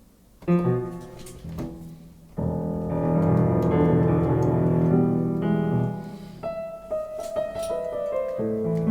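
Sampled grand piano (a Fazioli piano software instrument) played from a MIDI keyboard: two chords struck about half a second and a second and a half in, then a full, sustained chord with deep bass notes from about two and a half seconds in, followed by further chords.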